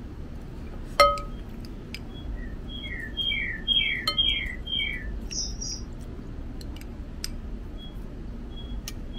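A small songbird singing a quick run of about six repeated chirping phrases, followed by two higher chirps. About a second in, a single sharp clink with a short ring, the loudest sound, over a steady low background hum.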